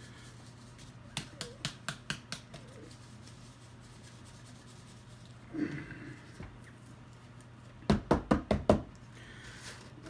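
Plastic supplement tub handled on a tabletop: a run of about seven light clicks a second in, then a quick series of about six solid knocks near the end.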